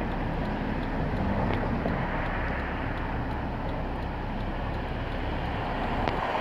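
Steady low rumble of road traffic, with a faint engine hum that fades after about two seconds.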